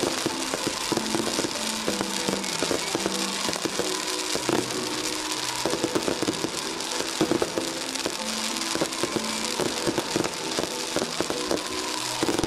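Dense, continuous crackling and popping of firecrackers and fireworks going off in quick succession. A melody of long held notes plays along with it.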